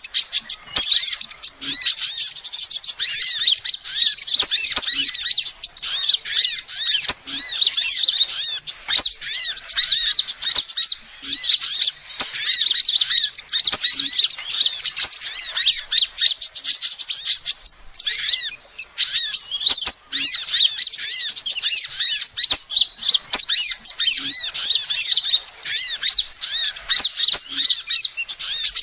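Female sunbird calling in a rapid, almost unbroken stream of high, thin chirps and short trills, pausing only briefly a few times.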